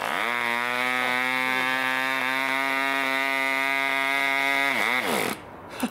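3.5cc Mikro Std 1965 model diesel engine catching and picking up speed at once, then running steadily at high revs. About five seconds in it winds down and stops as its fuel line is pinched off.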